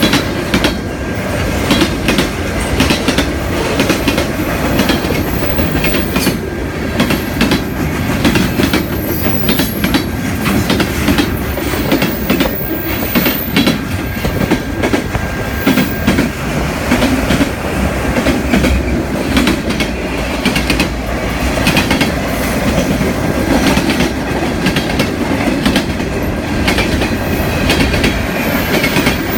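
A long CSX freight train's cars rolling past, their steel wheels clicking steadily over the rail joints, with a faint steady wheel squeal through the first half.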